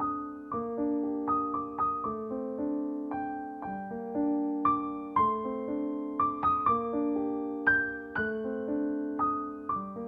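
Background piano music: a slow, gentle melody of single notes that ring and fade over held chords.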